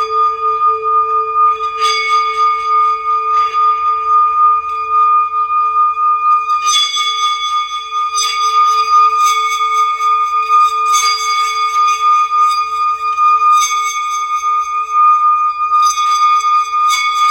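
Singing bowls sounding a steady, wavering hum on two held tones, struck afresh every second or few so that bright ringing overtones swell in and fade.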